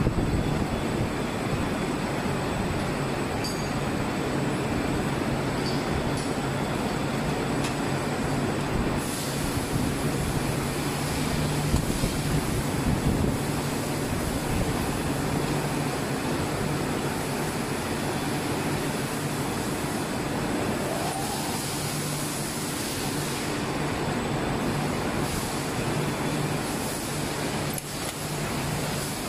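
Steady drone of rotational moulding factory machinery: a low hum over a broad hiss, with a few faint clicks.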